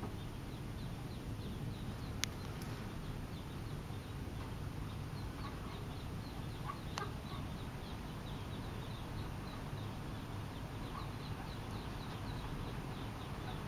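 Mallard ducklings peeping constantly, many short high peeps overlapping, over a steady low rumble. Two sharp clicks stand out, about two seconds in and again near the middle.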